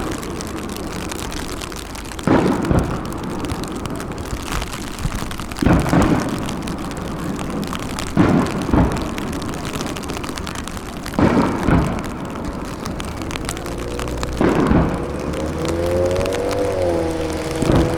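Aerial fireworks shells bursting: deep booms every few seconds, several in quick pairs, over a steady noisy background. A wavering pitched tone joins in over the last few seconds.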